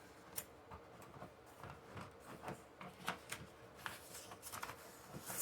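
Faint rustling of paper sheets and a few light clicks as paper is handled and pulled out of an inkjet printer's paper tray.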